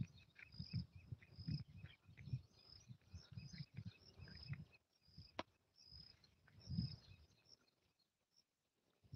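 Faint, high-pitched chirping outdoors, short calls repeated at a quick, fairly even pace and dying away near the end, over low irregular thumps and a single sharp click.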